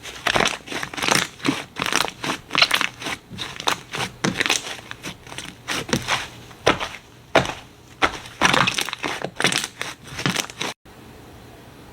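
Slime being pressed and squeezed by hand, giving a dense, irregular run of crackling pops and crunches. It cuts off abruptly near the end.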